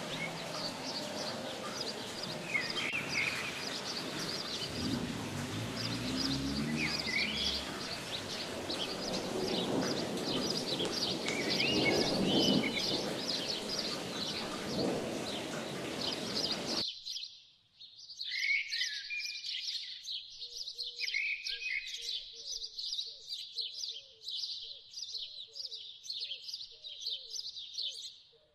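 Small birds chirping over a steady hiss of rain on the street. About seventeen seconds in the rain hiss cuts off, leaving rapid bird chirping with a lower note repeating underneath.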